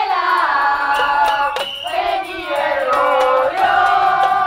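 A crowd chanting a song together in unison, many voices holding long, high notes.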